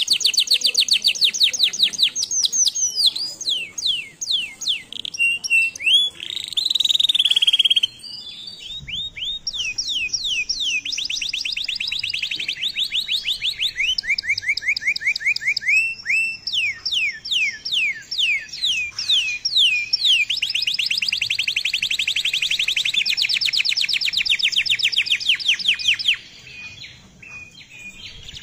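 Domestic canary singing: long, rapid, high-pitched trills of repeated notes alternating with fast downward-sweeping notes, with brief breaks between phrases. The song drops to faint about 26 seconds in.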